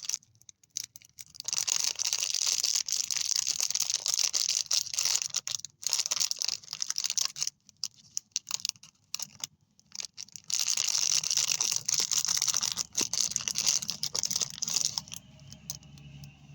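Plastic candy wrappers being crinkled and torn open by hand, in two long stretches of dense crackling with a pause of scattered clicks between them; the crackling stops near the end.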